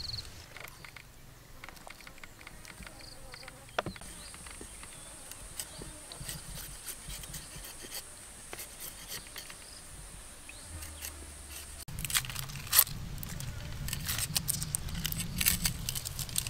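A steady high-pitched insect drone over faint scrapes and ticks of a knife working on vegetables. The drone stops abruptly about two-thirds of the way in, and dense knife clicks and scrapes on a wooden chopping block take over, growing busier toward the end.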